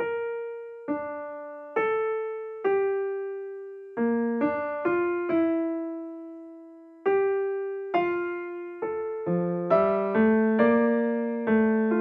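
Background music: a solo piano plays a slow melody of single notes, each ringing and fading. From about nine seconds in it quickens and lower notes join.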